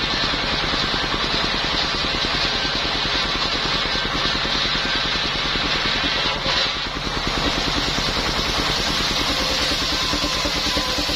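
Engine-driven circular sawmill (serkel) running steadily, its engine pulsing evenly under a hiss, with a brief dip in level a little after six seconds in.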